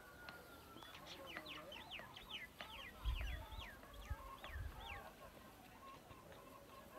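Faint bird calls: a run of about ten quick, sweeping notes over a few seconds, with low rumbling bumps on the microphone near the middle.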